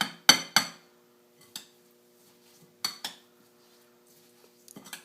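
A spoon clinking against a bowl while stirring fruit salsa. Three quick clinks come at the start, then scattered single and paired clinks with short ringing.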